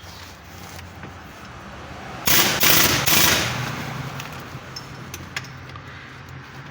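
A burst of about a second from a pneumatic impact wrench rattling, about two seconds in, over a steady low workshop hum.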